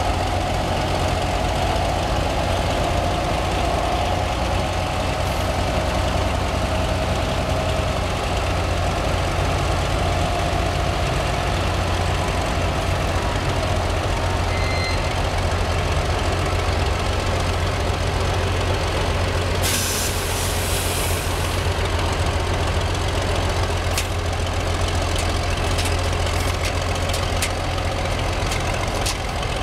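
1969 Lima 700T truck crane's engine running steadily while the upper house swings, with a whine over the first several seconds that fades out. About twenty seconds in comes a hiss of air lasting about two seconds, and near the end a scatter of clicks.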